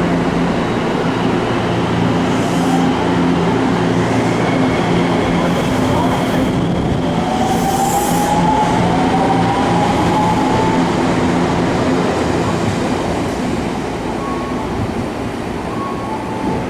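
Electric commuter train moving through the station platform. Its low motor hum gives way to a rising whine as it accelerates, and the noise then grows fainter as it moves away.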